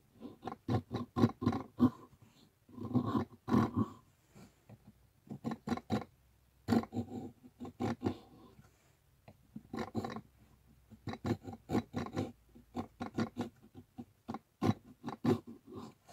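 A small homemade bullet-casing chisel cutting into a strip of wood by hand, peeling off curled shavings. It comes in bursts of quick scraping strokes, each burst about a second long, with short pauses between.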